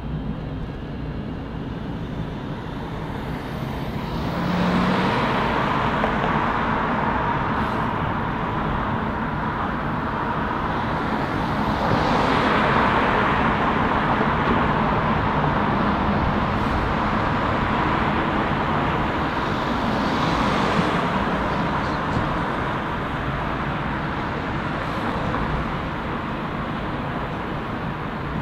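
City road traffic, with cars and other vehicles passing close by. Three passes rise and fade, about five, thirteen and twenty seconds in.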